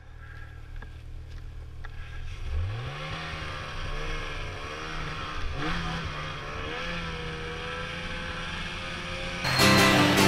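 Snowmobile engine running low and steady, then revving up about two and a half seconds in and running under throttle with its pitch wavering up and down. Guitar music comes in, much louder, near the end.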